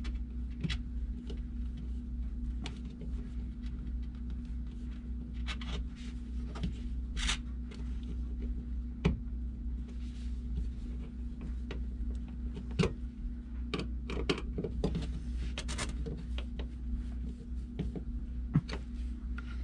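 Scattered small clicks and scrapes of a screwdriver turning an electrical receptacle's mounting screws by hand, over a steady low hum.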